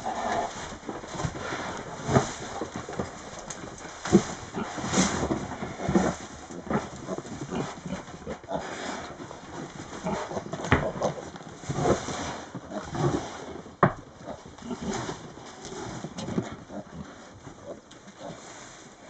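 Tamworth sow grunting and snuffling as she roots her snout through straw bedding, with the straw rustling, in short, irregular bouts.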